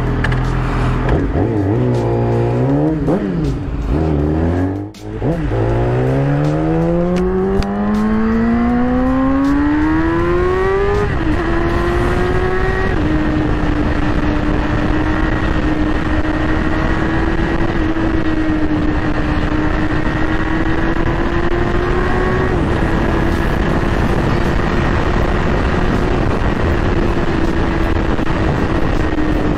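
2020 Yamaha R6 inline-four with an Akrapovic full exhaust, idling with a few throttle blips. It then accelerates in one long rising engine note, changes up around eleven and thirteen seconds in, and settles into a steady cruise under wind noise.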